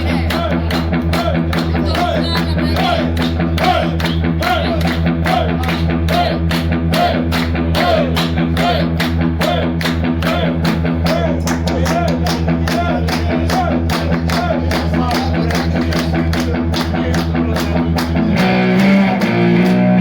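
Live rock band playing a droning instrumental with guitar over held low bass notes and a fast, even beat; the music shifts to new notes about eighteen seconds in.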